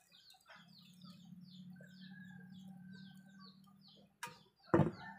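Chickens clucking with a quick run of high peeping chirps, about three a second, over a steady low hum; a few sharp knocks near the end.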